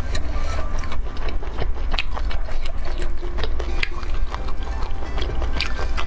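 Close-miked eating: a person chewing and biting into spicy sauced squid on skewers, with many short wet mouth clicks, over background music.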